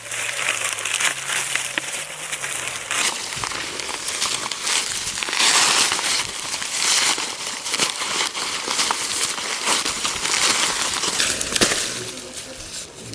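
Dry corn stalks, leaves and husks rustling and crackling as they are handled, with the crinkling noise going on throughout and easing off near the end.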